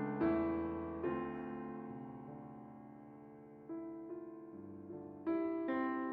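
Background music: slow piano chords, each struck and left to ring and fade, with a fresh chord about every one to two seconds.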